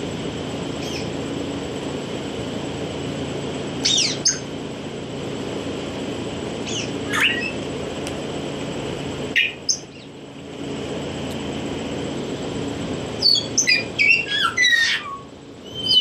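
African grey parrots giving short whistles and squawks that sweep sharply in pitch, a few scattered calls followed by a quick flurry of several calls near the end, over a steady low hum.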